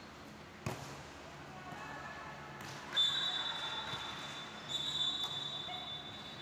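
A single sharp slap of a volleyball being hit about half a second in, then a referee's whistle blown in two long, shrill blasts, the first starting about three seconds in and the second just before five seconds, ending the rally.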